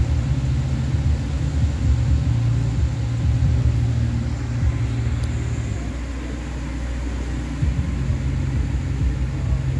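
A steady low rumble that eases slightly around six seconds in and comes back near eight seconds.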